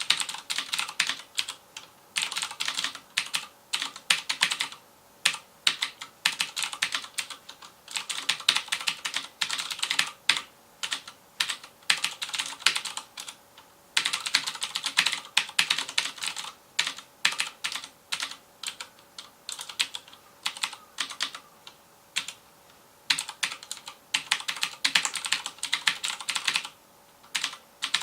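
Fast typing on a FILCO Majestouch Convertible 2 mechanical keyboard with Cherry MX Blue switches: a dense run of sharp, clicky keystrokes in bursts, with brief pauses between them.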